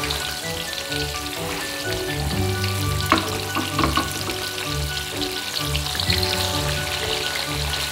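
Soaked black-eyed peas sizzling as they deep-fry in hot oil in a wok, just tipped into the oil. There are a couple of sharp clatters a little after three seconds in, and background music plays underneath.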